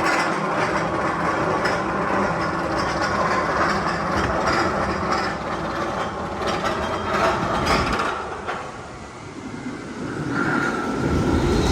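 Magnum XL 200 roller coaster train running along its track, a steady rumble with clattering wheel noise. It fades for a moment about three-quarters through, then builds up again.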